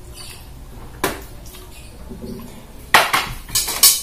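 Eating instant fried noodles: slurping and mouth noises, with a fork knocking against the plate. There is a short noise about a second in and a few louder clatters near the end.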